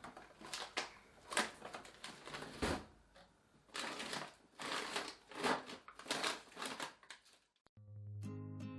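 Handling of plastic food packaging and storage containers: a run of short crinkling rustles and light knocks. Guitar music starts near the end.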